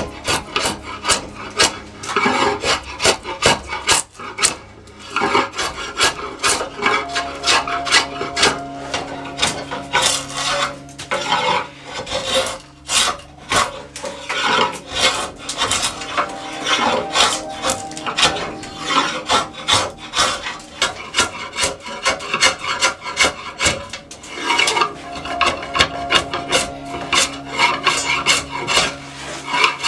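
A hand rasp or file worked in repeated back-and-forth strokes, a few a second with short pauses, over an Osage orange bow stave, shaving wood to shape the bow.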